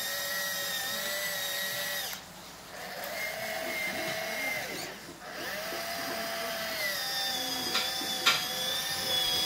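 Electric motor and gearbox of a JJRC Q64 6x6 RC truck whining in three runs, the pitch sagging and rising as the truck strains against a foam block, with short pauses between runs. Two sharp clicks near the end.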